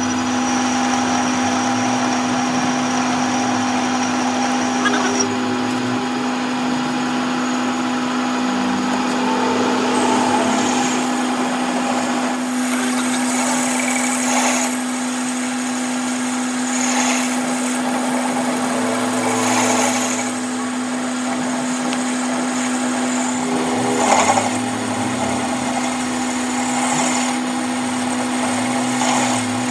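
An electric power tool's motor running steadily with a constant hum, with several louder swells of noise, at about 10, 14, 17, 20 and 24 seconds in, as the tool works on metal.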